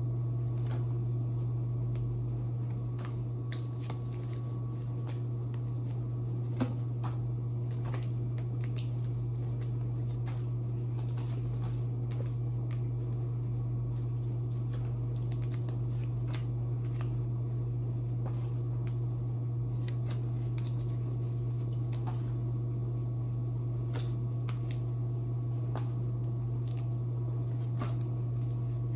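Dishwasher running with a steady low hum, under frequent light clicks and rustles of cardboard flash cards being picked up, shown and set down.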